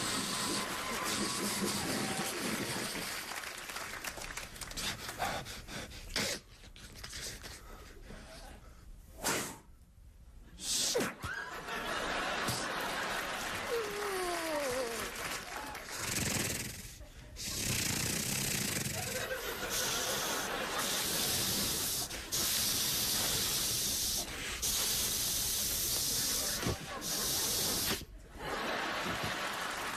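Sound effects made with the mouth: hissing, breaths and gasps, with a falling whistle-like glide a little before the middle. Long stretches of hiss fill most of the second half, broken by short pauses.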